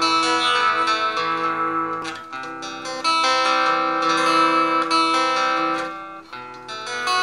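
Stratocaster-style electric guitar played with a clean, undistorted tone: a melodic run of picked single notes and chord tones left to ring, easing off briefly about two seconds in and again near six seconds.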